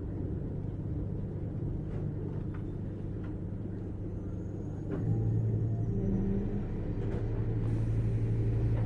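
Running sound of a 455 series express-type electric train heard from inside the car: a steady low rumble of wheels on rail with a few faint clicks. About five seconds in, a strong low hum sets in and the sound grows louder.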